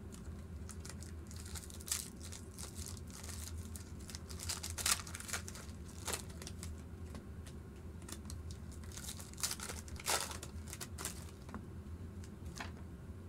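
Foil wrappers of 2014 Prizm football card packs being torn open and crumpled by hand, with irregular crinkles and rips that are loudest around five and ten seconds in.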